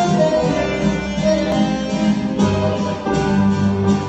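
A band playing live, led by electric guitar with keyboard, the notes sustained and running on without a break.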